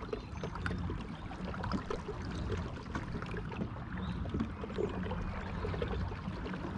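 Pedal-drive fishing kayak (Old Town Sportsman PDL 120) under way, with water churning and lapping along the hull. A low rumble swells about once a second, and small clicks and knocks come from the boat.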